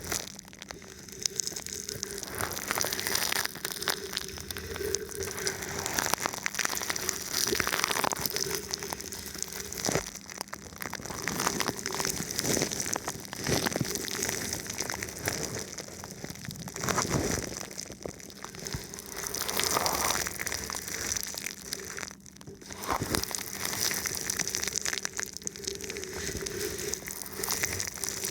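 Thin plastic wrapped over a microphone, rubbed and touched, giving a dense crinkling, crackling rustle that swells and eases every few seconds. A faint steady hum runs low underneath.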